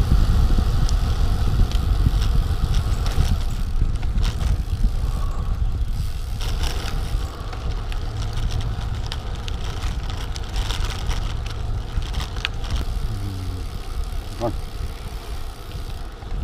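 Wind buffeting the microphone over the tyre noise of a Trek 5500 carbon road bike riding along a paved trail, a steady low rumble with occasional small clicks.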